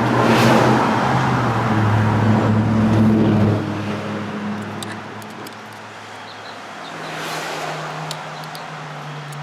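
A motor vehicle's engine running, with a steady hum and road-like noise. It is loud for the first few seconds, then fades, and a lower steady hum returns near the end.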